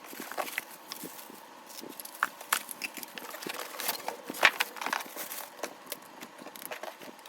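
Packaging being handled and unwrapped: irregular crackles, clicks and light taps, with the sharpest tap about four and a half seconds in.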